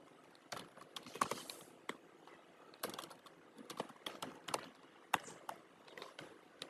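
Typing on a computer keyboard: soft, scattered key clicks at an irregular pace.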